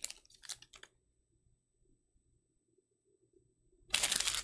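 Crinkling of a foil trading-card pack as it is handled: a few short crackles that die away within the first second, then near silence. A dense, loud burst of crinkling comes near the end.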